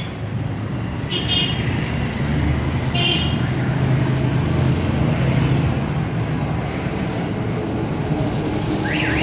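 Street traffic: vehicle engines rumbling steadily and swelling for a few seconds as traffic passes. Two short, high horn toots sound about a second in and again about three seconds in.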